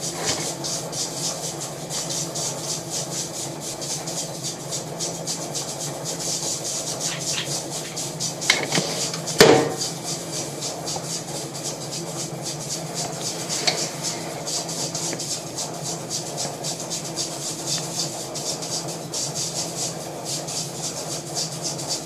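Jewelry laser welding machine running with a steady hum and a fluttering hiss. A few handling knocks and clicks come through, the loudest about nine and a half seconds in.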